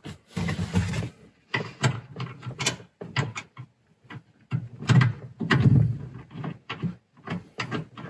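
Irregular rustling, scraping and clicking as hands work seat-belt webbing and hardware against a car's plastic interior side trim, in short bursts with brief pauses between them.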